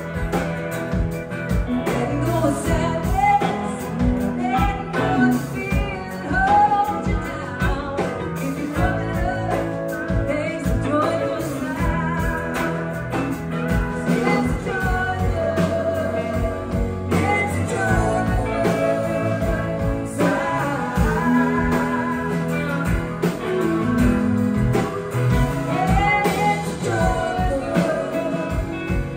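Live band playing a song: drums, electric and acoustic guitars, bass and keyboard, with a woman singing lead.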